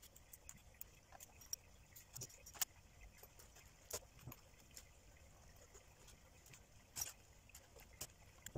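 Light, irregular clicks and clinks of aluminium scales knocking against each other as they are handled and fitted together by hand. A few sharper clicks stand out, about two and a half, four and seven seconds in.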